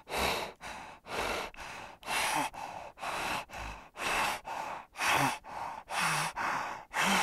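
Spotted hyena breathing heavily and rhythmically, a loud breath about once a second with a softer one between, some carrying a short low grunt.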